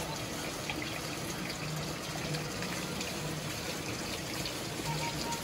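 Steady hiss of running or falling water, with faint background music underneath.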